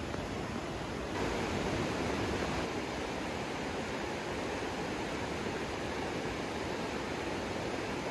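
Steady rush of river water flowing through a rocky gorge, a little louder from about a second in.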